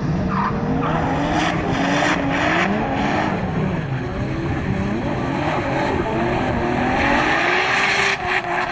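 Drift car's engine revving up and down as it slides sideways, with the hiss of spinning tyres throwing spray off wet asphalt, the hiss loudest near the end.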